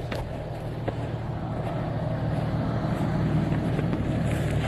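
Jeep engine running steadily, slowly getting louder.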